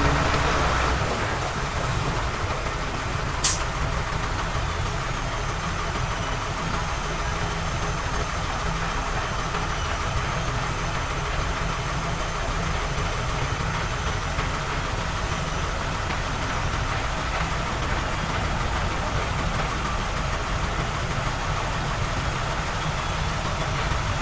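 Heavy earthmoving machine's engine running steadily, with one sharp click about three and a half seconds in and a faint high whine in the middle.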